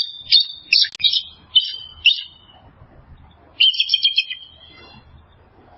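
A small bird chirping. There is a run of short, high chirps, a pause of about a second and a half, then a quick series of rapid notes.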